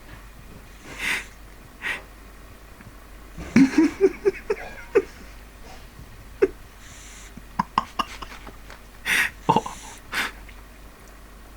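Sleeping pug snorting and wheezing through its nose in short irregular breaths. A quick run of short, rising squeaking whimpers comes a few seconds in, and single squeaks follow later.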